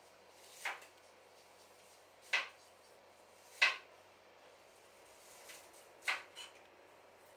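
Clothes rustling as they are handled and folded by hand: four brief rustles a second or more apart.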